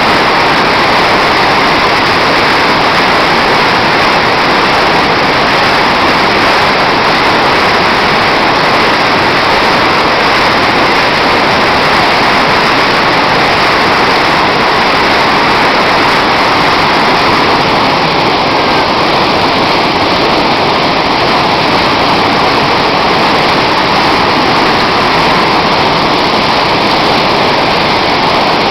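Heavy storm rain pouring down in a loud, steady hiss that does not let up.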